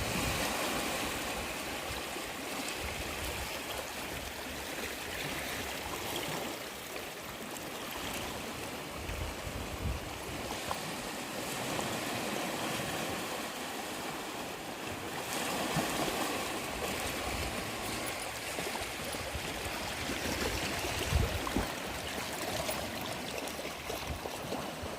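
Sea surf washing onto the beach: a steady rush of small waves breaking and swirling in the shallows.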